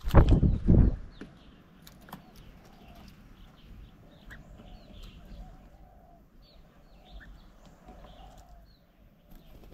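A loud flurry of wingbeats in the first second as a bird takes off close by, then birds chirping and calling faintly.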